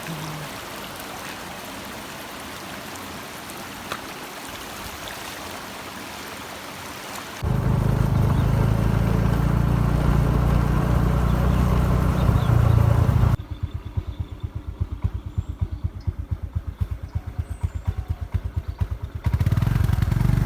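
A steady rushing hiss for about seven seconds, then a cut to the loud low rumble of a motorbike engine on the move. Midway, for several seconds, the rumble turns into fast, even pulses before the steady rumble returns.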